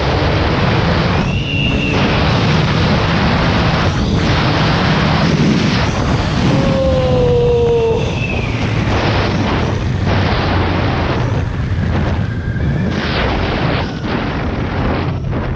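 Suzuki Hayabusa's inline-four engine on its stock exhaust, pulling hard under full acceleration, with loud wind rush buffeting the microphone.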